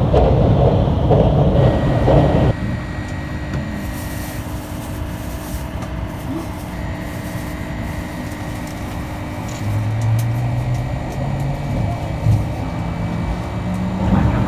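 Running noise of a limited express train heard from inside the cabin. A loud rumble drops off sharply about two and a half seconds in, leaving a quieter steady rumble. From about ten seconds in, a low hum steps up in pitch.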